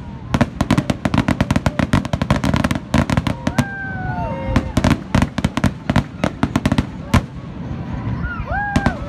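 Fireworks display: a dense barrage of aerial shell bursts, many sharp bangs and cracks a second over a continuous low rumble.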